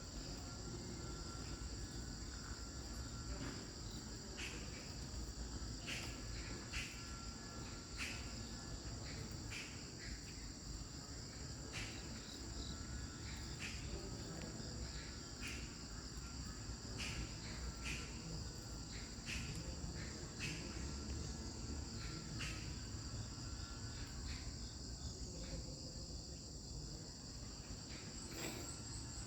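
Insects, crickets by their sound, trilling steadily at a high pitch, with short sharp clicks every second or two over it.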